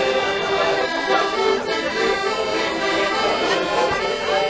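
Hohner button accordion playing a tune, held chords under a moving melody line of reedy notes.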